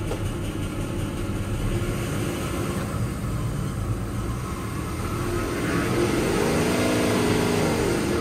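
A sailboat's inboard diesel engine running, revved up and eased back down again about six seconds in, just after a restart. It is running on water-contaminated diesel that keeps making it stall.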